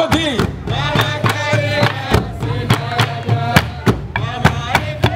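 A group of large wooden hide-headed drums beaten with sticks in a fast, driving rhythm of sharp strokes, with voices chanting over it.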